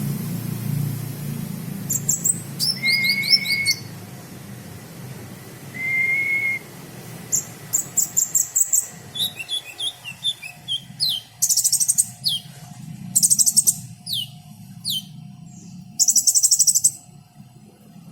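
Caged sunbird ('kolibri') singing a song filled with cricket-chirp mimicry. A few steady whistled notes come first, then quick downward-sweeping notes and fast, high buzzing trills, with three longer trill runs near the end.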